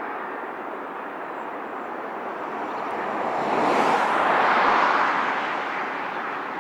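A vehicle passing by: a steady rushing noise that swells to a peak about four to five seconds in, then fades again.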